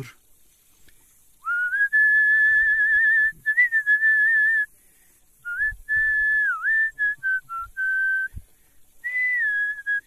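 A man whistling a melody with a wavering pitch, in three phrases with short pauses between them.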